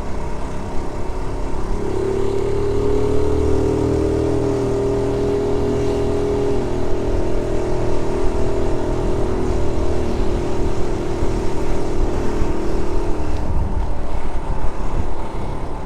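1976 Honda Z50 J1 monkey bike's small single-cylinder four-stroke engine running under way at a steady pace, its note clearest through the middle and fading back near the end, with wind rumble on the microphone.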